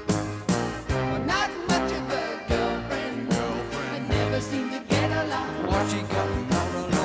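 A song with a singing voice over bass and a steady beat, captured directly from a headphone amplifier's output.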